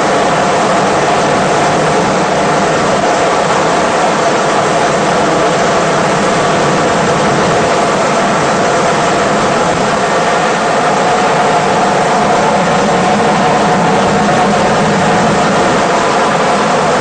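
Helicopter engine and rotor noise heard from inside the cabin: a steady drone with several held whining tones.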